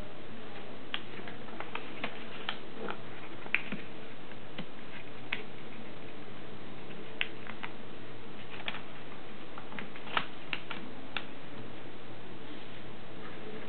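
Paper being folded and handled by hand on a tabletop: irregular light clicks and taps, about a dozen, over a steady hum and hiss.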